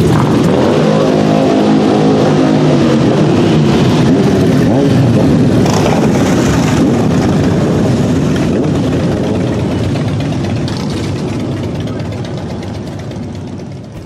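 Motorcycles riding slowly past, their engines running and revving in a loud, dense mix. One bike's engine note stands out for a few seconds about a second in, and the sound fades out near the end.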